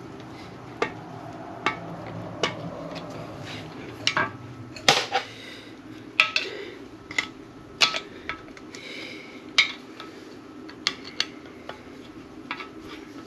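Metal hand tools clinking and knocking against metal: about fifteen irregular sharp metallic clinks, a few much louder than the rest, over a low steady background hum.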